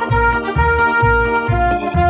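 Instrumental music with a steady bass beat about twice a second under held melody notes.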